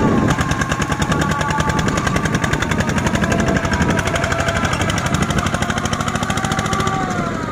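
Two-wheel walking tractor's single-cylinder diesel engine working hard while dragging a loaded rice trailer through deep mud, its exhaust beating fast and evenly, with the revs sagging briefly near the end.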